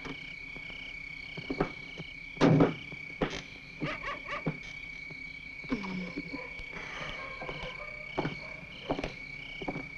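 Crickets trilling: a steady high note with a regular pulsing chirp above it. It is broken by a heavy thump about two and a half seconds in, then lighter knocks and clatter.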